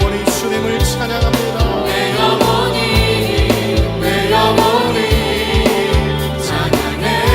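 Contemporary Christian worship music: a full band with a steady kick-drum beat and bass, with a choir singing.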